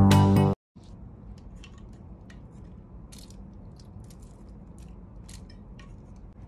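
Brief music that cuts off sharply, then water dripping from a water bottle's spout onto philodendron leaves: scattered irregular ticks over a faint low rumble.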